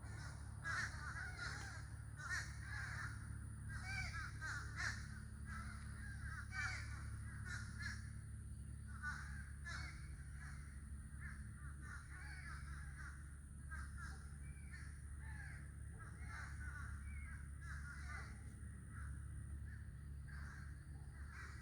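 Crows cawing over and over, faintly, many short calls following close on one another, over a steady low hum.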